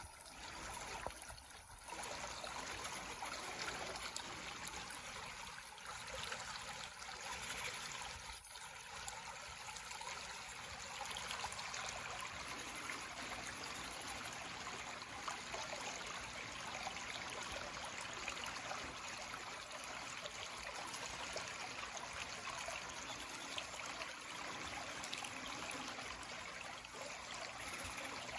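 Steady rushing, trickling sound of running water, with a brief dip about a second and a half in.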